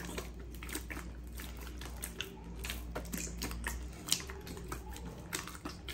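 Hands kneading soft, wet dough: an irregular run of sticky slaps and squelches as the dough is pressed and turned.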